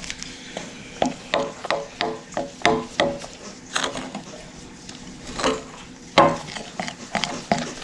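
A spoon stirring and scraping in a bowl of sticky melted gummy-candy and marshmallow slime as cornstarch is worked in, in a run of short scrapes and knocks about two or three a second, pausing briefly a couple of times.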